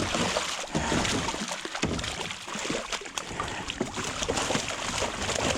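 Water splashing and sloshing with irregular knocks and thumps, as buffalo fish flop and are let out of a raised hoop net back into the river.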